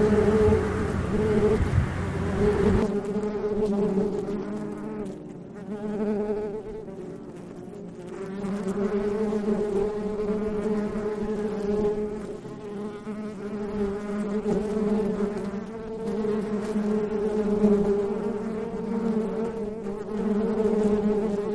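Honeybees buzzing around an opened hive as its frames are lifted out: a steady, pitched hum that swells and fades.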